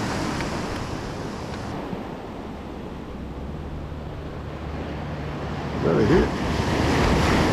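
Ocean surf breaking and washing up a sandy beach, with wind on the microphone. The surf grows louder about six seconds in.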